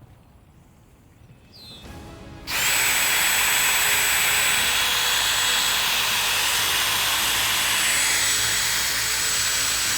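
DeWalt cordless power drill used as a fishing reel, starting suddenly about two and a half seconds in and running steadily with a constant high whine as it winds in the fishing line.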